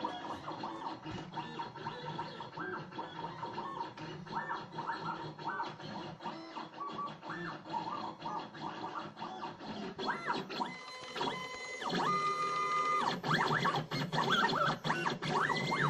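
Stepper motors of a homemade CNC plotter driving its axes along threaded rods. Short whining tones jump up and down in pitch with each move, with light clicks, and a longer steady tone about twelve seconds in.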